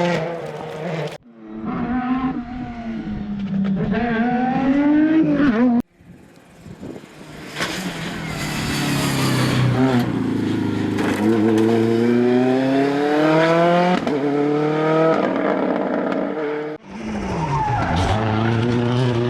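Rally cars at full throttle. Their engines rise in pitch through the gears and drop on shifts and lifts, with some tyre squeal. The sound cuts off abruptly three times, where one short clip gives way to the next.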